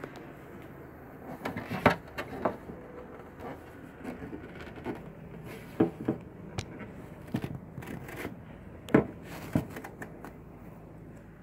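Handling noise: scattered light knocks, clicks and rustles, about a dozen of them, as the clear plastic dust cover of a Technics SL-1210 MK5 turntable is handled.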